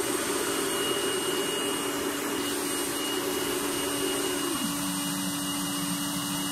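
Burner running on a homemade brass-melting furnace: a steady rushing noise with a low hum. The hum drops in pitch about four and a half seconds in, as the furnace lid is closed.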